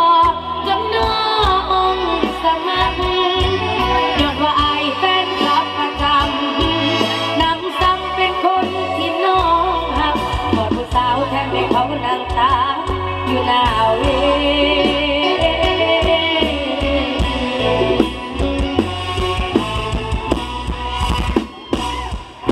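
Loud live mor lam band music played through stage loudspeakers, a singer's wavering voice over instruments and a heavy bass that drops in and out.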